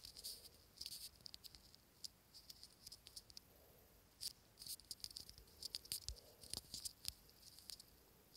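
Faint, irregular small clicks and rustles of a phone being handled, fingertips tapping and swiping its touchscreen.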